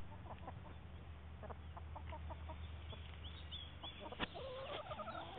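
Chickens clucking in short, repeated calls, with a longer wavering call near the end.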